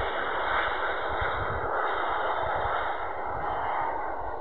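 Steady rushing noise of a wide-body jet airliner's engines as it comes in over the runway and touches down near the end, with low gusty rumbling of wind on the microphone.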